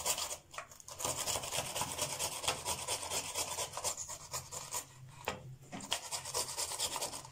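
Green bell pepper being grated by hand on a handheld plastic grater with metal blades: quick repeated rasping strokes, with short breaks about half a second in and about five seconds in.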